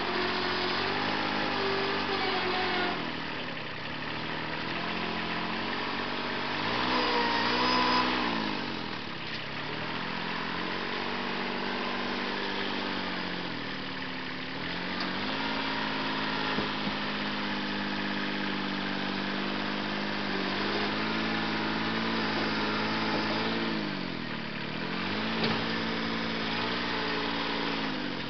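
Compact tractor engine running under load as its front loader pushes a chicken coop, the engine speed dropping and picking back up several times. A brief, louder squeal about seven seconds in.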